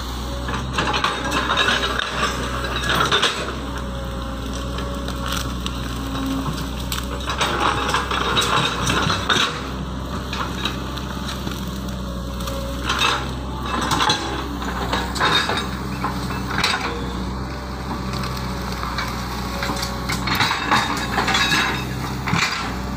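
Excavator's diesel engine running steadily, with repeated bursts of loud cracking and clattering as the machine works through the crossing.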